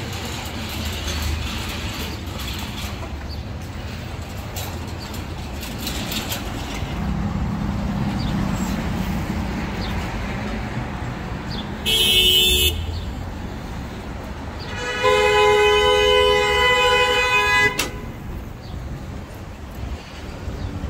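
Street traffic noise, with two vehicle horn honks: a short one about twelve seconds in and a longer, louder one lasting nearly three seconds a few seconds later.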